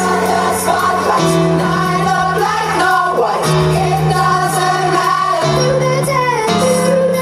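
Pop song with singing over held bass notes that change every second or two, played as the music for a dance routine.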